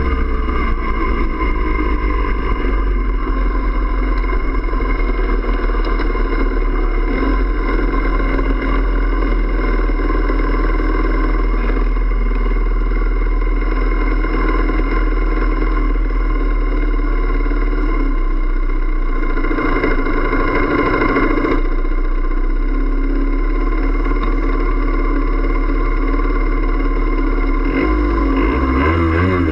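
Small two-stroke engine of a 1982 Yamaha DT50M enduro moped slowing down, then idling steadily, with a brief louder stretch around twenty seconds in. Near the end a second moped's engine pulls up close, its pitch rising and falling.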